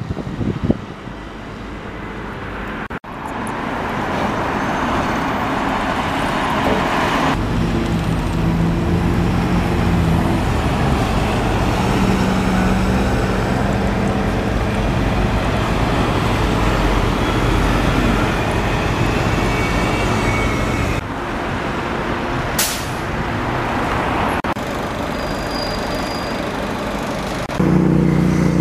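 City-street road traffic, with buses and other heavy vehicles running and passing, their engine note changing abruptly several times. A short sharp hiss comes near the end.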